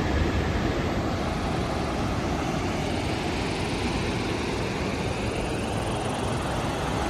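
Steady rushing roar of white-water rapids in the river below the dam, an even rush that does not change.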